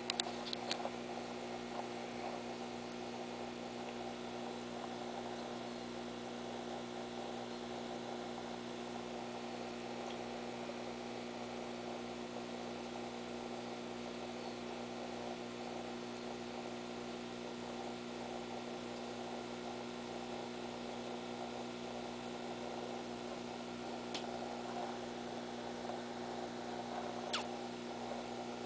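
Steady electrical hum of an aquarium air pump feeding the tank's air stone, with a faint click or two near the end.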